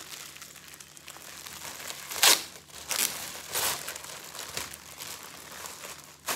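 Clear plastic garment bag crinkling and rustling in a few irregular bursts as it is handled and opened to take a shirt out; the loudest crackle comes about two seconds in.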